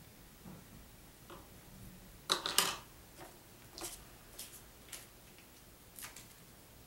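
Plastic Lego pieces clicking as they are handled and fitted together: scattered sharp clicks, with the loudest cluster about two and a half seconds in and a few lighter ones after.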